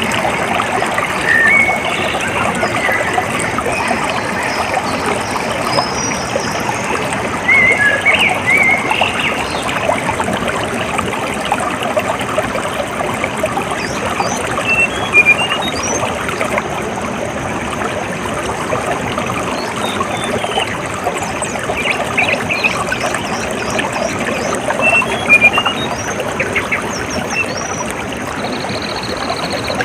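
Water trickling and flowing steadily, with birds chirping now and then in short runs of quick high notes. A thin, steady high buzz starts near the end.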